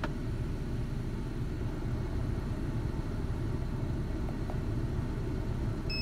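Ford Ranger's engine idling steadily, heard from inside the cab with the AC compressor just switched off.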